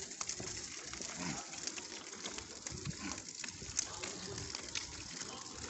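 Stroller wheels and flip-flop footsteps on asphalt: a steady hiss with many irregular small clicks.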